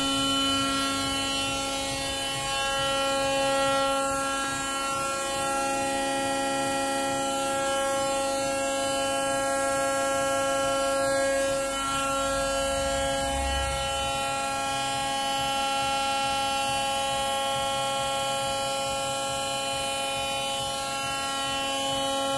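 Gildemeister GD 130 CNC lathe running under power: a steady motor whine made of several held tones, shifting slightly in pitch a few times, with a brief low rumble a little past the middle.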